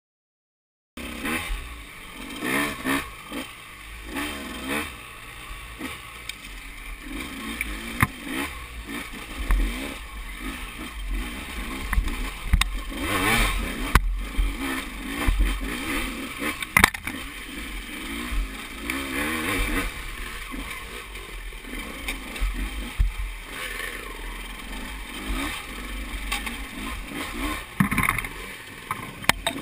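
A KTM 200 XC-W two-stroke dirt bike engine, revving up and down unevenly as it is ridden slowly along a slick, muddy trail, with a few sharp knocks along the way. The sound starts about a second in.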